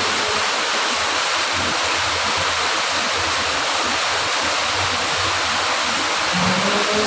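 Steady, heavy rain: an even, continuous hiss of falling water.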